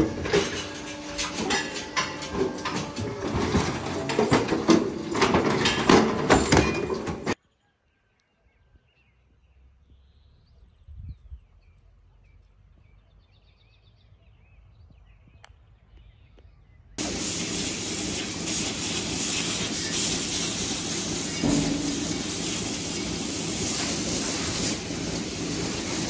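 Metal clattering and knocking at a hoof-trimming chute. Then several seconds of near quiet, and from about two-thirds of the way in, the steady mechanical noise of milking-parlour machinery.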